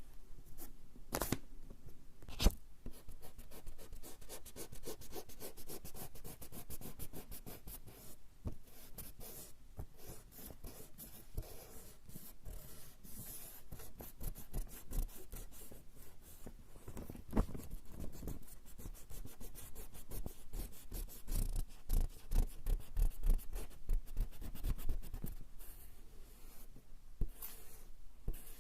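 Rubber eraser rubbing back and forth on coarse straw paper in quick, rapid strokes, with a few louder knocks now and then and a busier spell near the end.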